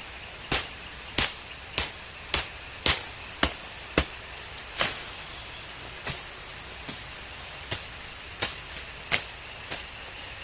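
A series of sharp, short knocks, about two a second at first, then sparser and uneven.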